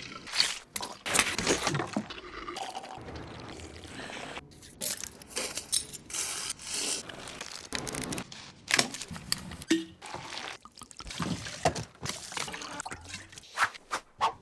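A rapid string of short film sound-effect clips of liquor being poured from bottles into glasses, with glass clinks among them.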